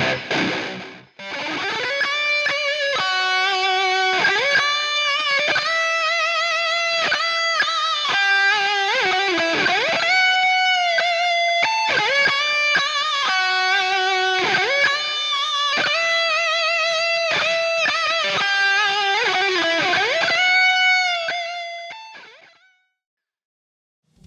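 ESP Snapper-7 seven-string electric guitar playing a single-note lead melody through a Kemper amp profiler, with sustained notes, vibrato and bends. The line drops out briefly about a second in and fades to silence near the end.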